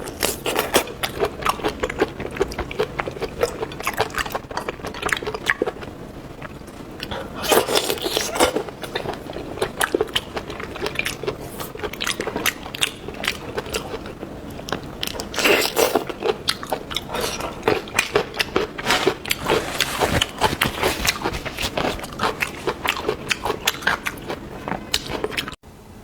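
A person biting and chewing seafood: a dense run of wet crunches and clicks, louder near eight seconds in and again about halfway through.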